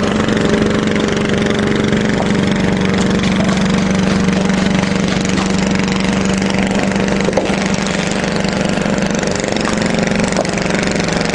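An engine running steadily at idle, a constant loud hum with a few faint knocks.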